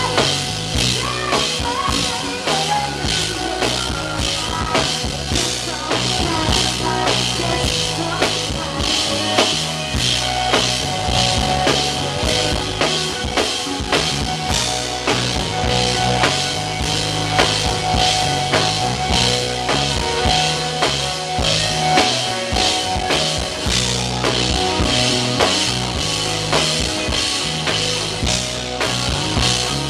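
A live band playing a song, with a drum kit keeping a steady beat under electric guitar and a bass line.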